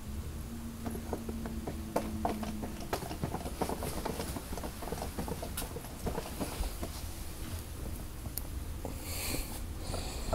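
Domestic cat right against the microphone, purring low, with scattered clicks and rustles as it noses and rubs around the phone and the clutter. A short steady hum sounds in the first few seconds.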